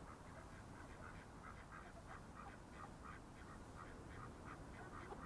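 Mallard ducks quacking faintly in quick runs of short quacks, several a second, over a low steady rumble.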